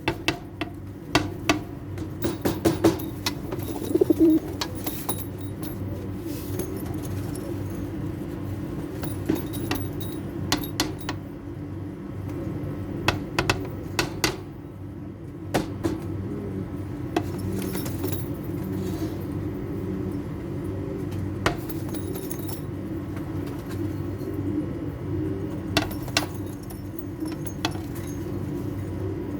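Pigeons cooing steadily and overlapping, with scattered sharp clicks and clinks throughout.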